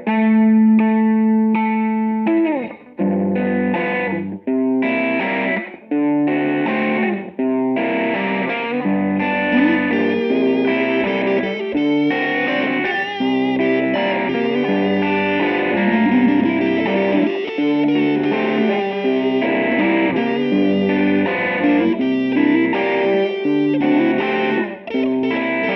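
Rock music led by an electric guitar with effects: a held chord, then short stop-start chords, then a steady riff from about seven seconds in.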